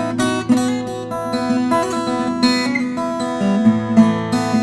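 Acoustic guitar played fingerstyle: chords in the key of E arpeggiated with open strings left ringing, a steady flow of plucked notes with a few sharper strummed chords among them.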